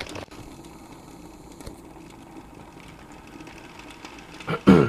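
Groen jacketed electric kettle heating a little water on setting 5: a steady faint noise of the steam jacket heating, with the water just beginning to bubble. A short voiced sound near the end.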